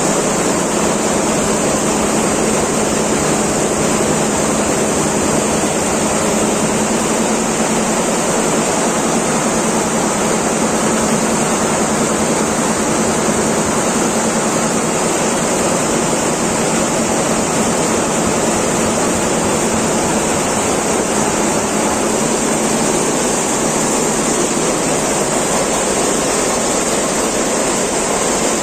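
Richpeace computerized quilting machine running steadily: a continuous, even mechanical noise with a low hum that holds unchanged throughout.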